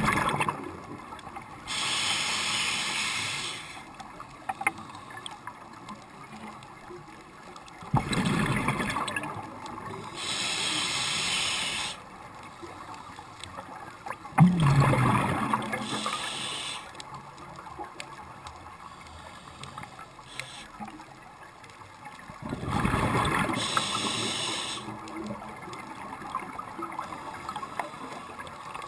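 Scuba diver breathing through a regulator underwater: a hiss on each inhale and a burst of bubbling exhaust on each exhale, about four breaths spaced six to seven seconds apart, with quiet water noise between.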